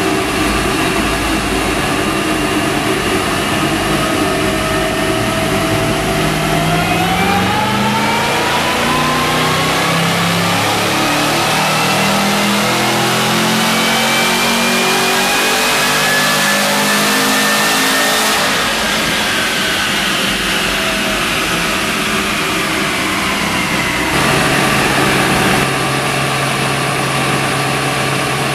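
Supercharged 6.2-litre LS3 V8 of a 2014 Chevy SS, with a TVS2300 blower and factory exhaust manifolds and exhaust, making a chassis-dyno pull. It runs steadily at first, then rises in pitch for about twelve seconds with a climbing supercharger whine, falls away as it coasts down, and settles to idle about four seconds before the end.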